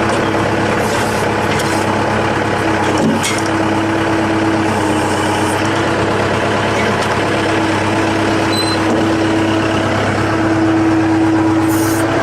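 Heavy machinery with an engine running steadily: a constant low hum and a steady whine that fades in and out. There is a single sharp knock about three seconds in.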